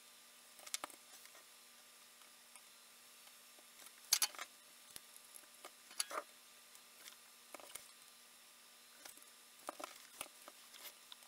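Light clicks and taps of small circuit boards and a soldering iron being handled and set down on a work mat, in scattered clusters with the loudest about four seconds in, over a faint steady hum.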